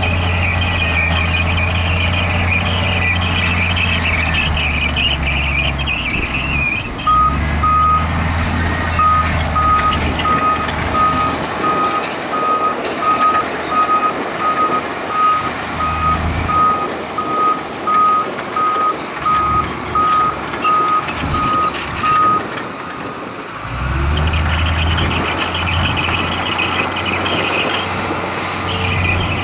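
Diesel engine of a heavy earthmoving machine running, with a high squeal over it at the start and again near the end. About seven seconds in, a reversing alarm starts beeping steadily, about one beep a second, for some fifteen seconds while the machine backs up.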